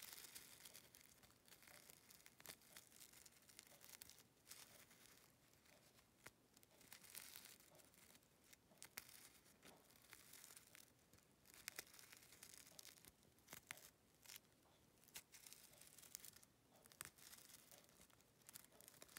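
Faint, scattered rustling and clicking of reversible flip sequins on a plush toy as fingers brush across them, flipping the sequins over.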